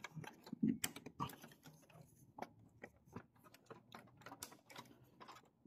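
Light, irregular plastic clicks and taps as a plastic cover is pressed into place inside an Epson L3110 printer, its clips seating.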